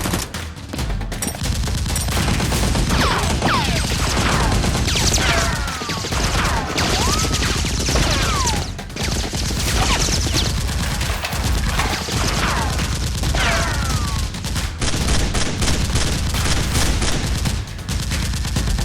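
Sustained rapid gunfire, a dense crackle of shots. Through the middle of it come a dozen or so whistling sounds that fall quickly in pitch, like bullets whizzing past.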